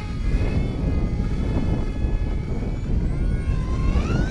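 Electric motor and propeller of an XK A1200 RC glider whining as it flies past, the pitch rising near the end as the throttle opens. Wind rumbles on the microphone underneath.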